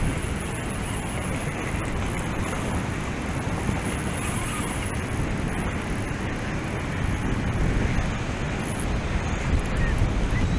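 Steady rush of a fast-flowing river, with wind buffeting the microphone.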